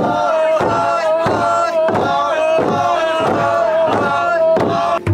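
Ao Naga men chanting together in a sustained unison chant while striking a large hollowed-log drum with wooden beaters in a steady beat, about three strokes every two seconds. The sound cuts off suddenly near the end.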